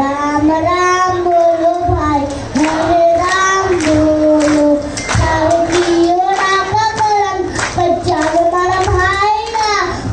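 A young boy singing into a microphone, holding long notes with a wavering pitch between short breaths.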